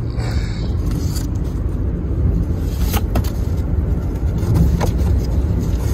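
Steady low rumble with a few light clicks and rustles of cardboard as a box of live white mice is opened by hand.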